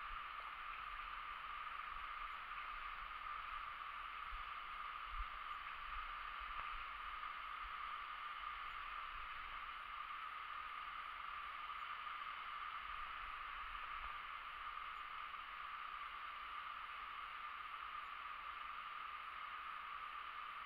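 Steady rushing of a fast, swollen river running over rapids, a constant hiss of moving water, with faint low rumbles on the microphone.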